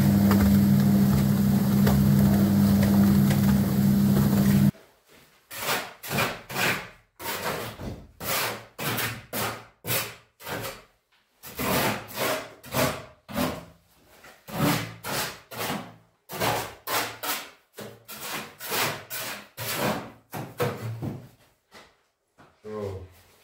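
A motor runs loudly and steadily for about five seconds and cuts off suddenly. Then a hand saw cuts wood with regular back-and-forth strokes, about two a second.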